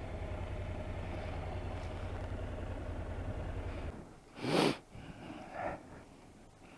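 A low steady engine rumble that cuts off about four seconds in, followed by one short loud puff of breath through the nose and a fainter sound about a second later.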